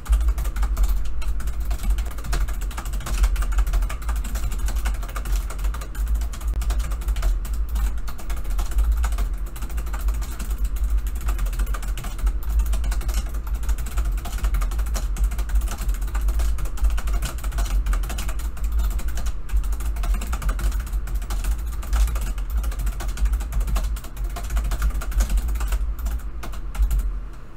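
Fast, continuous typing on a backlit computer keyboard: a dense stream of key clicks over a steady low rumble, stopping near the end.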